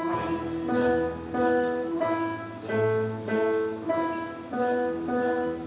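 Solo instrumental music from a student recital: a melody of separate, evenly paced notes, about two a second, starting right after a count-in.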